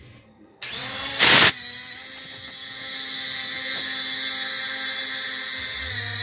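Small cheap drone's electric motors and propellers starting up suddenly about half a second in, with a brief loud rush of noise a moment later, then a steady high-pitched whine.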